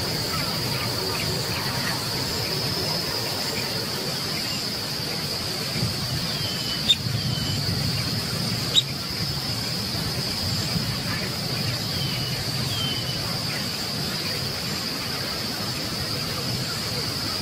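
Steady high-pitched drone of insects, with a low rumble underneath. A few faint short bird chirps come and go, and two sharp clicks fall near the middle.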